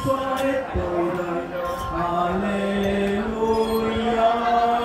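Slow hymn singing at Mass, with long held notes that change pitch every second or so.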